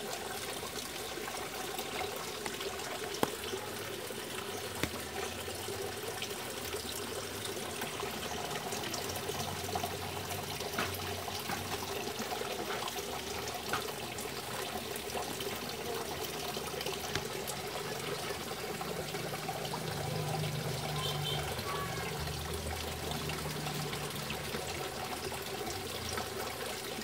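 Pond water trickling and splashing steadily, with a couple of brief clicks in the first few seconds.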